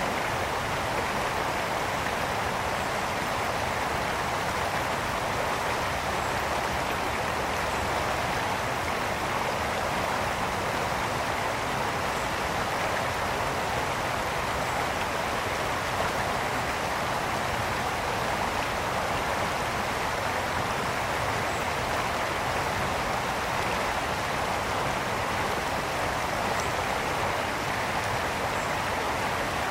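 Brook water flowing and splashing in a steady, unbroken rush.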